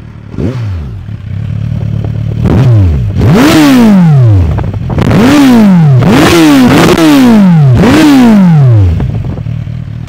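Kawasaki Z1000R's liquid-cooled 1000 cc four-cylinder engine with an SC-Project aftermarket exhaust, idling on a stationary bike and then revved. There is a small blip about half a second in, a longer climb around three seconds in, then four more sharp throttle blips, each rising and dropping back toward idle.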